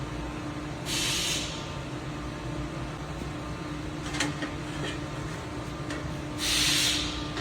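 Hydraulic plate roller running with its pump humming steadily while it rolls a steel plate into a ring. Two short bursts of hiss come about a second in and near the end, with a few faint clicks in between.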